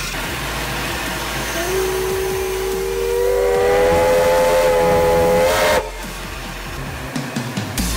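Steam whistle on a water-tube boiler sounding over a hiss of escaping steam. A single low note starts about two seconds in, more notes join a second or so later to make a chord, and the whistle cuts off suddenly about three-quarters of the way through.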